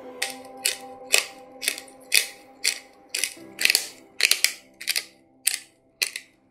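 Hand-turned pepper mill grinding black peppercorns: a run of short, crunchy ratcheting rasps, about two a second, each twist of the mill's head. Soft background music runs underneath.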